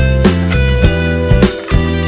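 Background music: a guitar-led track with a steady beat and heavy bass.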